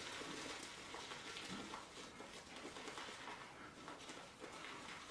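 Shaving brush whipping shave cream into a thick lather in a bowl: faint, steady swishing with soft irregular ticks.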